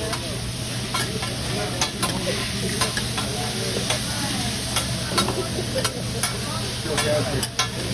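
Food sizzling on a hot hibachi griddle, a steady frying hiss, with irregular sharp clicks of metal spatulas striking the griddle.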